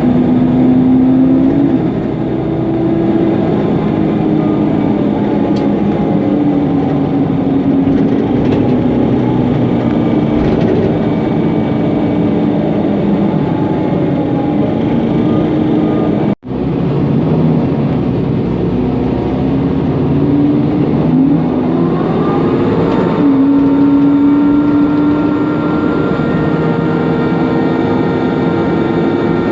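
Mercedes-Benz Conecto NGT city bus under way: its OM 936 G natural-gas engine and loud engine-cooling fan running with steady tones, rising in pitch about two-thirds through as the bus accelerates and then holding. The sound drops out for an instant a little past halfway.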